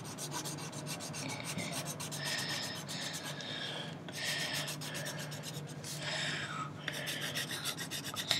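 Colored pencil scratching on paper in quick back-and-forth strokes while colouring in an area, with a couple of short pauses.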